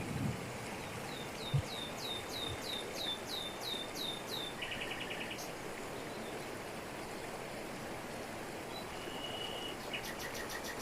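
Steady rush of a waterfall in tropical forest, with birds calling over it: a run of about ten quick falling whistled notes starting about a second in, then a short rapid trill. Near the end a brief high note and a burst of fast ticks.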